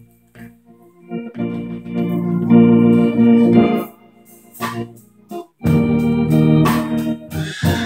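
Organ playing long held chords: one chord about a second in lasting over two seconds, a few short stabs, then a second held chord of about two seconds.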